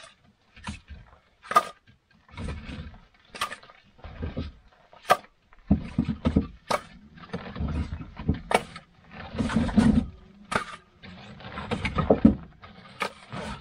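Footsteps crunching through deep snow at a steady walking pace, about one step a little under every second.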